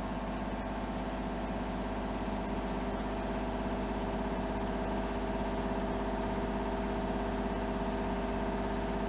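Kubota mini excavator's diesel engine running steadily as the machine is worked on its controls, getting a little louder from about halfway through.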